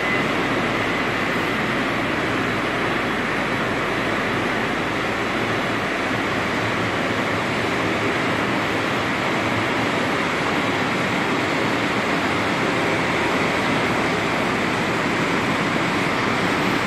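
Steady, even rushing noise of production-line machinery running, such as the blower fans over a French-fries line's mesh conveyor.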